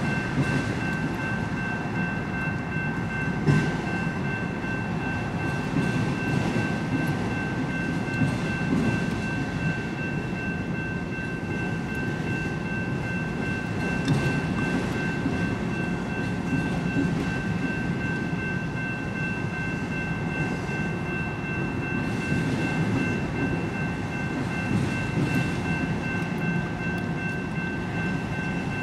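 Freight train of autorack cars rolling past a grade crossing: a steady rumble of steel wheels on rail with a few scattered clanks. A steady high ringing tone sounds over it.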